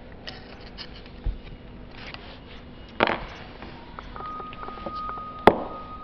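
Metal parts of a die-cast aluminium joint assembly being handled on a workbench: light clicks and scrapes, a louder click about three seconds in, and a sharp knock of metal on the bench about five and a half seconds in. A steady high tone comes in about four seconds in.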